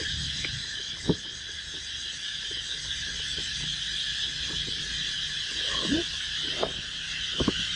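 Insects buzzing steadily in a high-pitched drone, with a few short knocks and scrapes of cardboard as a long box is handled and opened, the sharpest about a second in and again near the end.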